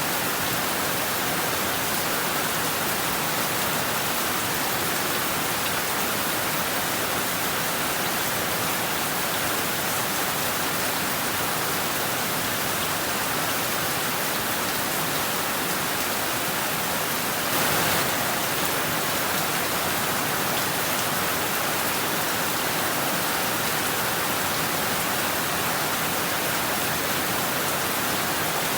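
Heavy rain falling steadily on roofs and trees, a dense even hiss, with one brief louder swell about two-thirds of the way through.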